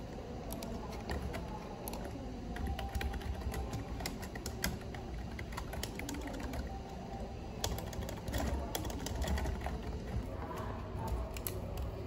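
Typing on a computer keyboard: quick, irregular key clicks coming in runs, thinning out in the last couple of seconds.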